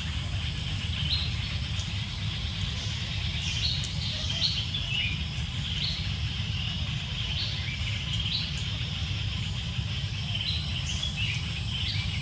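Forest ambience: birds chirping in short calls that drop in pitch, repeated every second or two, over a steady high hiss and a steady low rumble.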